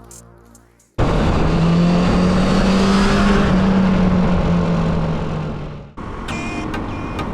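Honda CT125 Hunter Cub's single-cylinder engine running steadily. It cuts in abruptly about a second in and tails off after about five seconds.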